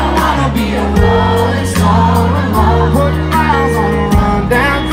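Live country band playing loud through a stage sound system: a sung vocal over electric guitar, sustained bass notes and a steady drum beat, heard from within the crowd.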